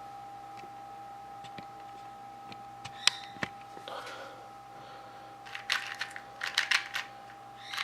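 Dayan 2x2 speed cube being turned by hand: a couple of single clicks, then a run of quick clicking turns in the last few seconds. The turns lack the scratchy sound of a WitTwo. A faint steady hum sits underneath.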